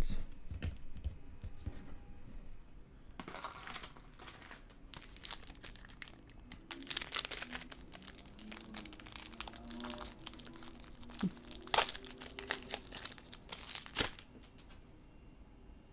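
Wrapper of a baseball card pack crinkling and tearing as it is opened, with irregular rustling and scattered sharp clicks. A louder snap comes about three-quarters of the way in and another near the end.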